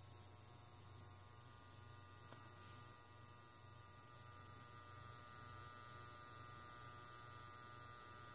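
Faint, steady electrical mains hum from a variac feeding a powered-up SJ-350A solder pot under load, as the voltage is turned down.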